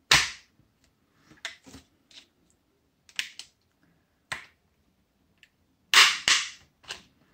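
Plastic casing of a laptop battery pack popping open along its glued or heat-welded seam as it is pried apart, giving a series of small sharp clicks. The loudest snaps come right at the start and twice about six seconds in, with fainter ones between.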